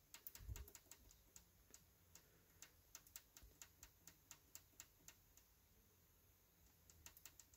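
Faint, quick clicks of a Mid 2010 Mac Pro's power button being pressed over and over, about two to three a second, pausing for a couple of seconds before starting again near the end. The machine is failing to power up on a single press, which the owner puts down to the power supply.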